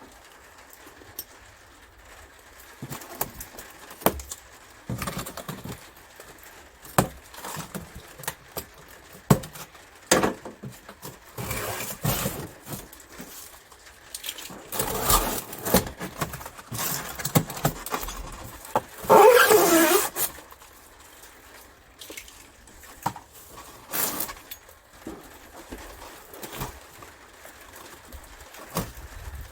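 Cardboard packaging being opened and taken apart by hand: scattered knocks, scrapes and rustles, with one louder squeaky scrape about two-thirds of the way in.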